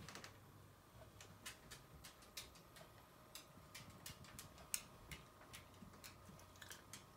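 Near silence with faint, irregular ticks, about three a second, one a little louder than the rest near the middle, from a Mitsubishi LT-5V vertical linear-tracking turntable as its lifted tone arm travels back on its own at the end of the record.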